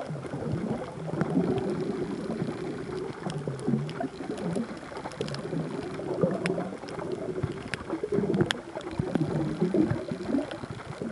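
Muffled underwater water noise heard through a compact camera sealed in a soft waterproof bag: low, wavering gurgling and sloshing, with scattered sharp clicks.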